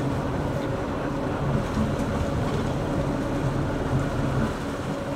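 A boat's engine running steadily, with wind and water noise over it.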